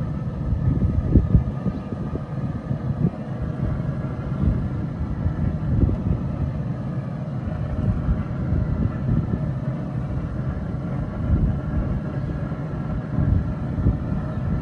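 Wind buffeting the microphone, an uneven low rumble that comes and goes in gusts, over a faint steady hum.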